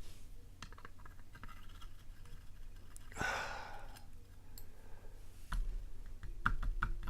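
Faint clicking and tapping of lock picks working the pins of a pin-tumbler challenge padlock. A sigh about three seconds in is the loudest sound, and a few sharper taps come near the end.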